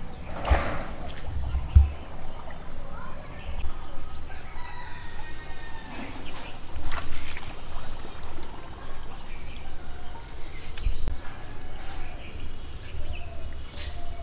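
Outdoor bird calls, short chirps scattered throughout, over a steady high insect buzz. A few brief rustles of leafy plants as a person wades through them, the largest about half a second in.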